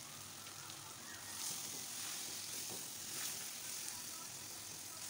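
Oil sizzling softly in a frying pan under freshly added chopped tomatoes, spices and fenugreek leaves, as a spatula stirs them together.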